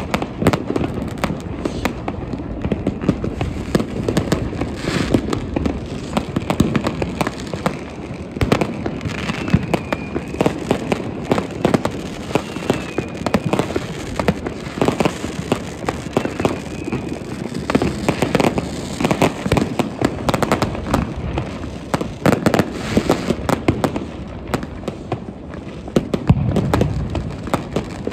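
New Year's Eve fireworks going off without pause: many overlapping bangs and pops of firecrackers and fireworks, with a few faint whistles in the middle.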